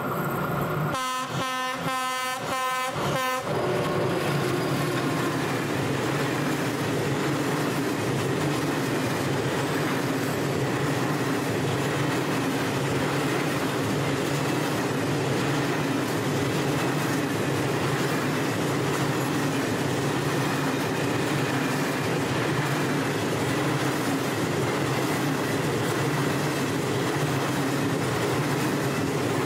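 A locomotive's horn sounds a quick string of about five short blasts about a second in. Then a long freight train of flat wagons rolls steadily past, wheels clattering on the rails.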